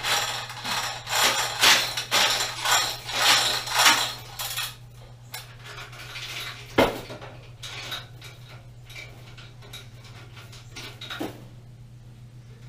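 Loose metal parts clattering and clinking. A rapid run of rattles fills about the first five seconds, then come a few scattered clinks and one sharp knock about halfway through.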